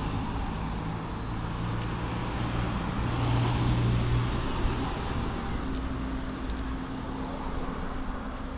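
A motor vehicle running, with a steady low engine hum under road or wind noise that swells a little about three to four seconds in.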